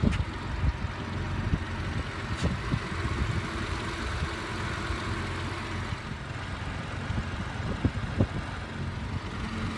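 Steady low rumble of a vehicle engine idling, even throughout, with a few faint clicks.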